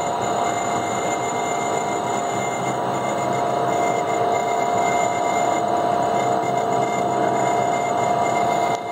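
Industrial tote mixer running steadily, its motor and drive giving a constant mechanical hum with a steady whine as the agitator shaft stirs viscous orange juice concentrate. The sound briefly drops near the end.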